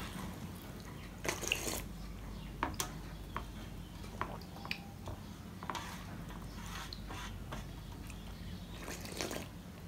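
A hand mixing runny lentil dal in a steel plate: irregular wet squelches and small splashes of liquid, with light clicks of fingers against the metal.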